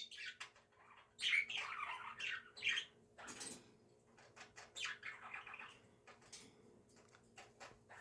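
Budgerigar chirping and chattering in several short bursts, with a harsher squawk about three seconds in.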